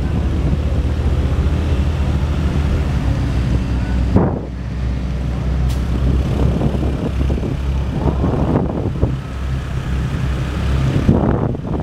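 Motorbike engine running on the move, with road and wind noise on the microphone; the engine note and the rushing noise shift a few times along the way.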